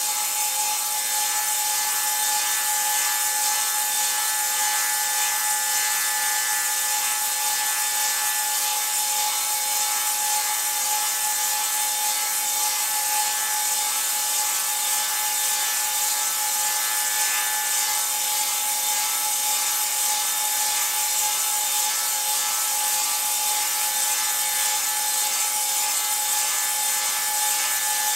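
Table saw fitted with a Tenonizer TC 300 tenon cutter attachment, steadily cutting a tenon into a round wooden part as the cutter's head spins. The cutting noise holds an even level, with a constant hum running under it.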